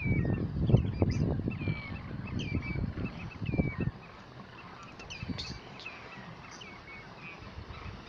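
A flock of water birds calling, short high calls following one another about twice a second. A low rumble is louder than the calls in the first four seconds, then drops away.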